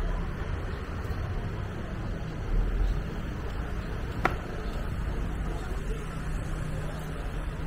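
City street traffic: a steady low rumble of passing vehicles. A short, sharp click sounds a little past halfway.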